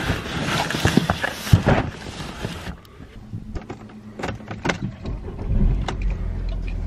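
Cardboard boxes rustling and knocking as they are handled, then a few small clicks as a car key goes into the ignition and turns. About five and a half seconds in, the car's engine starts and settles into a steady idle.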